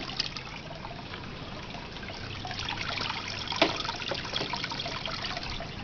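Water trickling steadily, with a few small clicks, the sharpest about three and a half seconds in.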